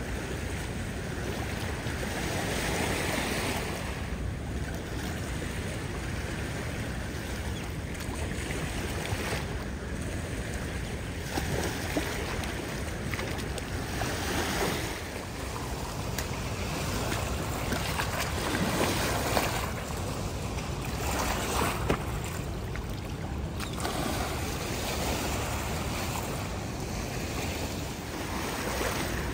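Small waves lapping and washing against a stony shore, swelling and easing every few seconds, with wind rumbling on the microphone.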